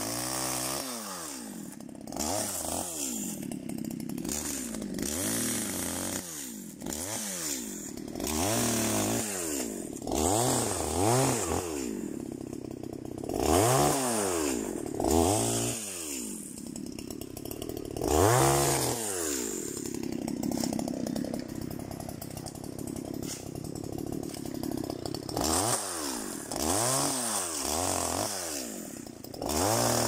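Two-stroke petrol chainsaw cutting through a dry fallen log, the engine revving up and dropping back again and again as the chain bites into the wood and eases off.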